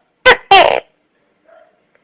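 Tokay gecko calling one two-syllable "to-kay": a short sharp note followed by a longer note that falls in pitch.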